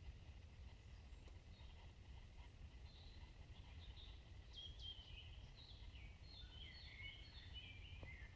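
Faint songbird singing: a quick run of high notes stepping down in pitch, starting about three seconds in and thickest near the end, over a low steady rumble.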